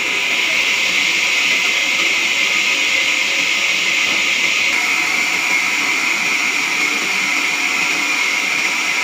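Sawmill machinery running with a steady whir and a high hiss, with no blade biting into wood.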